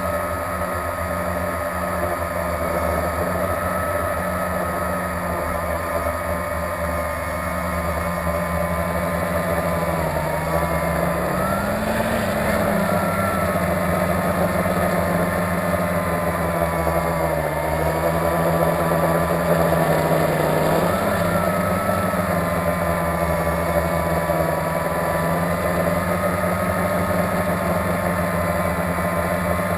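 Blade 350QX quadcopter's four brushless motors and propellers running with a steady hum, heard up close from the camera on board. The pitch rises about twelve seconds in, then dips and swells again later as the drone manoeuvres.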